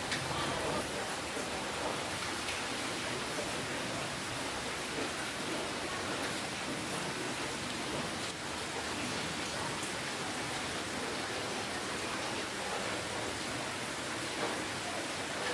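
Steady rainfall, a dense even hiss of drops with faint individual drop ticks now and then.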